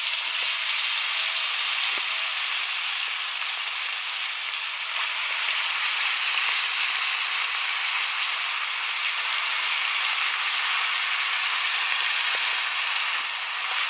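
Marinated chicken leg pieces deep-frying in hot oil in a shallow iron pan: a steady, loud sizzle with a couple of faint pops.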